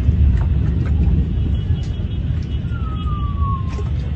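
Steady low rumble of wind buffeting a phone microphone out on the water, with one short falling whistle-like tone about three seconds in.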